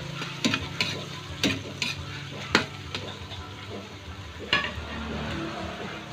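Pork intestines sizzling as they stir-fry in an aluminium wok. A metal ladle scrapes and knocks against the wok several times in the first three seconds, and once more about four and a half seconds in.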